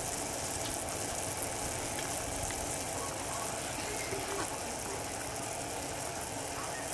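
Butter and brown sugar boiling hard in a saucepan as a toffee, a steady bubbling sizzle with faint small pops.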